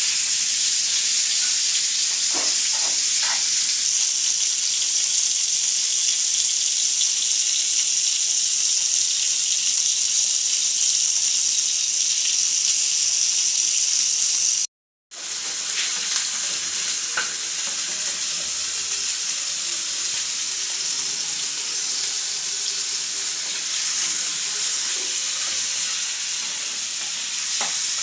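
Chicken pieces frying in hot oil in a wok, a steady high sizzle. It cuts out for a moment about halfway, then a slightly quieter sizzle of sliced meat frying in a pan follows.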